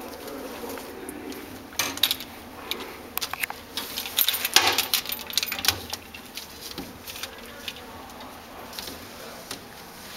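Metallic clinking and rattling of a wire animal cage as the camera is handled against it. A burst of sharp clicks and jangles runs from about two to six seconds in, then settles.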